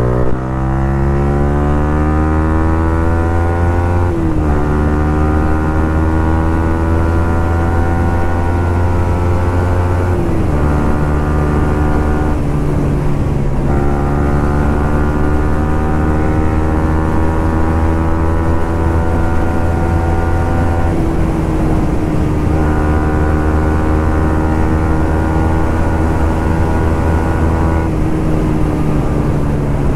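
Yamaha R15 V3's single-cylinder engine running under way. Its pitch climbs slowly and steps back down several times, about 4, 10 and 21 seconds in, with a short easing-off around 13 seconds.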